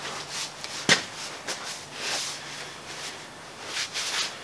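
Cloth rustling as hands are wiped on a shop rag, with a single sharp click about a second in and a faint steady hum underneath.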